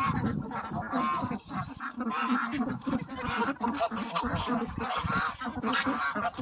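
Mixed flock of domestic geese and ducks calling constantly while feeding, geese honking over the ducks' quacking.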